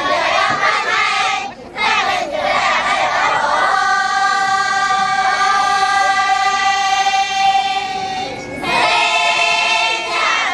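A choir of girls singing together. Short wavering phrases come first, with a brief break about a second and a half in. Then comes one long held note from about four to eight seconds, and after a short pause another held note.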